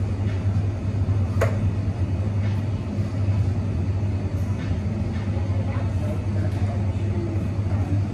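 Cafe ambience behind an espresso bar: a steady low hum of machinery, with a sharp clink of cups or metal about one and a half seconds in and a few fainter clinks.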